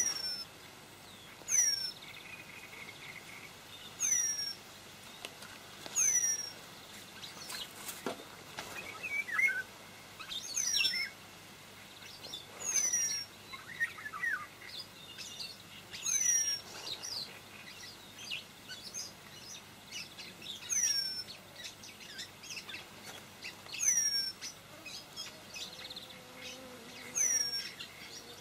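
A bird repeating a short, high, falling call about every two seconds, with other small birds chirping in between.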